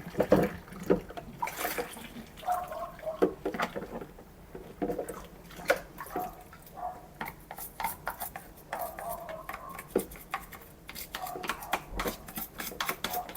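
Shark stick vacuum parts being washed by hand in a sink of soapy water: splashing and dripping, with frequent light knocks and clicks of plastic against the sink.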